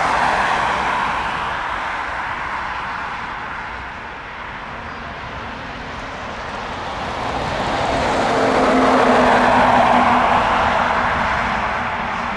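Airbus A320 jet airliner on final approach, its engines giving a steady rushing roar that swells, eases around four seconds in, then swells to its loudest near the end with a low steady hum in it.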